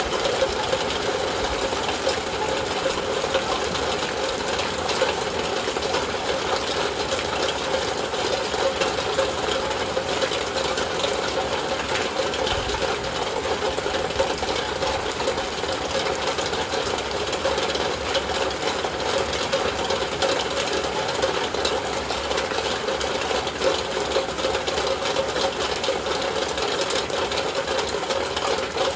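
Heavy rain falling on a window: a dense, steady stream of drops hitting the glass.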